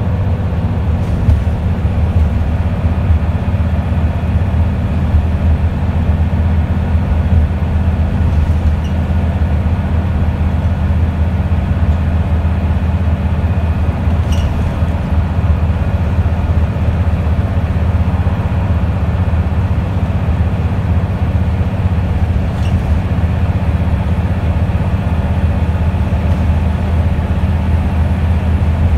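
Wright Solar-bodied Scania single-decker bus under way, heard from inside the passenger cabin: a steady low engine drone with road rumble. A couple of faint rattles tick through it.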